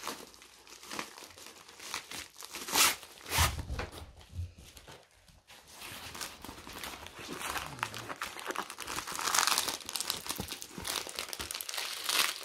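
Clear plastic sleeve crinkling and a rolled diamond-painting canvas rustling as it is pulled out and unrolled by hand, in irregular bursts, with a few soft handling thumps about three to four seconds in.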